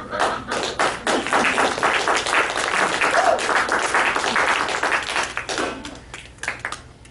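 Audience applauding, a dense patter of many hands clapping that thins out and dies away about six seconds in.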